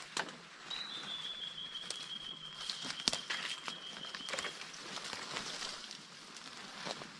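Footsteps crunching and rustling through dry bush litter, with scattered sharp snaps of twigs. About a second in, a single high whistle starts, dips slightly in pitch, and is held steady for nearly four seconds.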